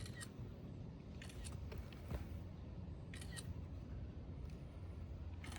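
Camera shutter clicking in three quick bursts, a second or two apart, over a steady low hum.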